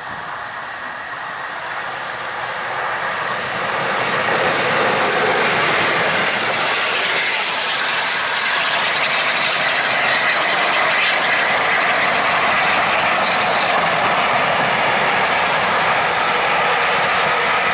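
Peppercorn A1 Pacific steam locomotive 60163 Tornado approaching and passing, followed by its train of teak coaches rolling by with wheels clattering on the rails. The sound grows over the first few seconds, then holds steady and loud.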